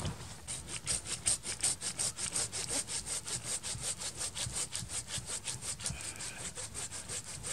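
Hand saw cutting through a branch in quick, even back-and-forth strokes, about five a second.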